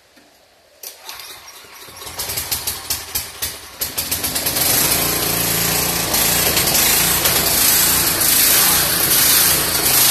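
Portable generator engine starting up: uneven sputtering pulses from about a second in, then it catches and runs steadily and loudly from about four and a half seconds.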